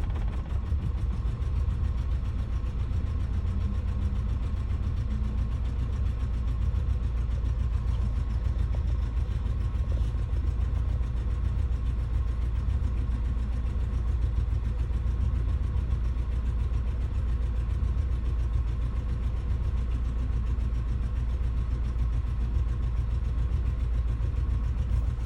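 1990 Geo Tracker / Suzuki Sidekick four-cylinder engine idling steadily, running rough with a misfire.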